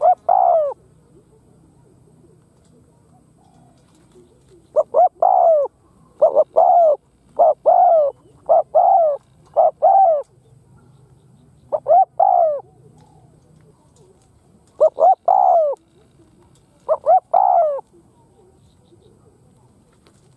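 Spotted dove cooing: about nine short, falling coos come in bouts, with a quick run of four between about six and ten seconds in. This is the rapid 'gù' cooing of a courting or territorial male.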